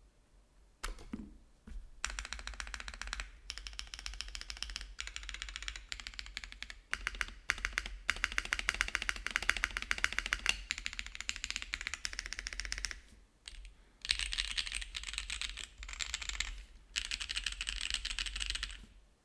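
Typing on a Veil 65 gasket-mount mechanical keyboard with an aluminium full plate, no foam, WINGBlack switches and DCS-profile keycaps: fast, dense keystrokes in bursts with short pauses between them, after a single lower thump about a second in.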